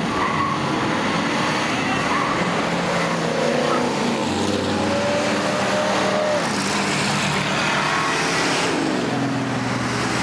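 Classic cars and pickup trucks cruising past on a street, their engines running under steady traffic noise. One engine rises in pitch as it accelerates midway, and another falls in pitch near the end.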